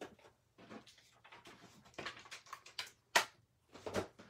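Paper and card stock handled on a tabletop: soft rustles and scattered light taps, the sharpest tap about three seconds in.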